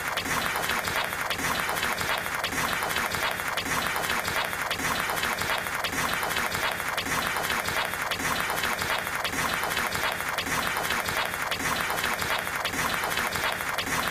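Cartoon table-tennis rally so fast that the ping-pong ball's clicks off paddles and table blur into a steady, applause-like clatter.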